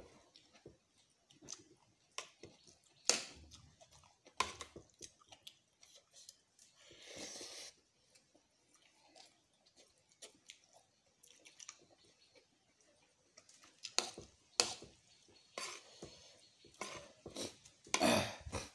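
A person eating instant noodles close to the microphone: chewing, with several sharp clicks of a metal spoon and fork against a plastic bowl.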